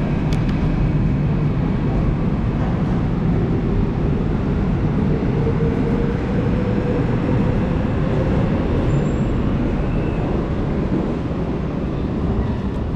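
Subway train running past behind platform screen doors as it pulls out of the station: a steady, loud rumble and rush of noise that eases a little near the end.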